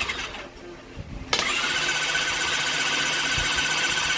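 An electric power tool in a workshop cuts out for about a second, then switches on again with a sharp start, its whine rising quickly and then running steady.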